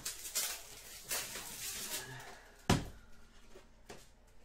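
Trading cards and pack wrappers being handled, rustling and sliding, with one sharp knock a little past halfway.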